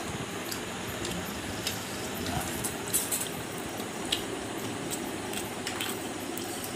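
Eating by hand from a steel plate: a few faint clicks of fingers working rice and curry against the metal, over a steady hiss.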